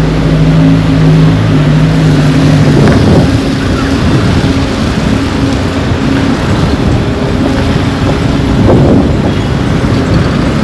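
Steady rush of heavy rain, with a vehicle engine humming for the first three seconds or so before it fades out.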